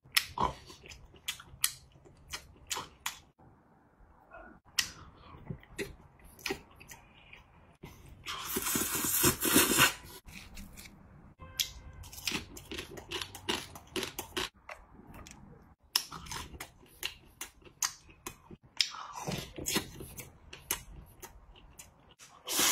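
Close-up eating sounds of a man eating noodles and seafood: chewing with many small wet mouth clicks, and a long loud slurp about eight seconds in, with more slurping near the end.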